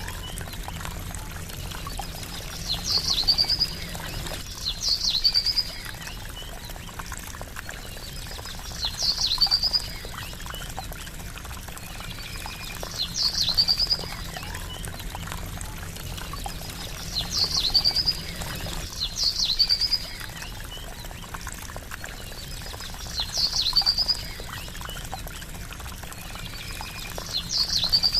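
Steady trickling, splashing water with a bird repeating one short, high call every few seconds, about nine times. Each call is a sharp note that runs into a brief trill.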